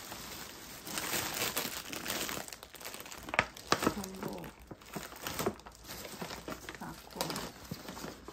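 Plastic shopping bags and food packaging crinkling and rustling as groceries are lifted out and handled. Two sharp knocks about half a second apart come around three and a half seconds in.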